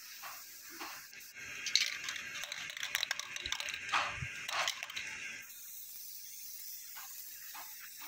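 Aerosol can of protective anti-corrosion coating spraying onto the copper header and return bends of a window AC cooling coil: a hiss that starts after about a second and a half, surges unevenly, and cuts off sharply after about four seconds.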